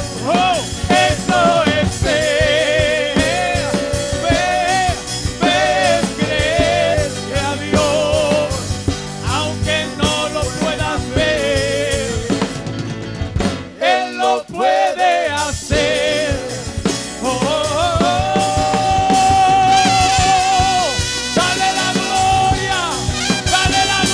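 Live Latin Christian worship music: a male lead singer with strong vibrato over a full band with trumpets, keyboard and drums. The band briefly thins out about halfway through, then comes back under long held sung notes.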